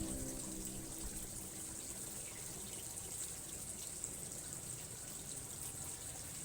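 Steady running water, an even rush with a high hiss, with a faint pitched hum fading out in the first second or two.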